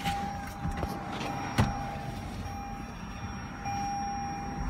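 A steady, high electronic tone from a 2018 Toyota Camry's warning chime, breaking off now and then and loudest near the end, with the door open. Over it come a few knocks and clicks as someone climbs into the back seat, with one sharp knock about a second and a half in.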